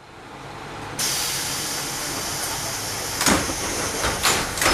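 KiHa 38 diesel railcar's DMF13HS six-cylinder engine idling, with a loud compressed-air hiss that starts suddenly about a second in and holds, then three short sharp air bursts near the end, from the railcar's air system before departure.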